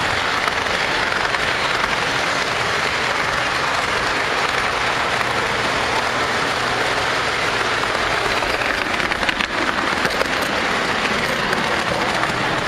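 O scale model train rolling on three-rail tubular track, heard from close by: a steady dense clatter and rumble of metal wheels on the rails, with a few sharper clicks about three-quarters of the way through, as over rail joints or a switch.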